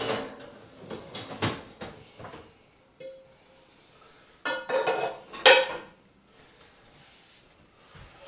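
Dishes and a frying pan clattering as a dishwasher rack is pulled out and handled: scattered clinks early on, then a louder burst of metallic clanks with a short ring between about four and a half and six seconds in.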